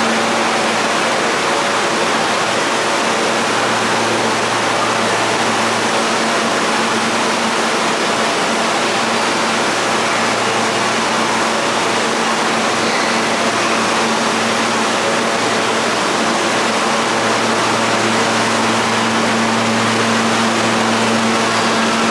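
Steady rushing rumble of a subway tunnel and station as an R160 train approaches around the curve, with a constant low hum that swells in and out.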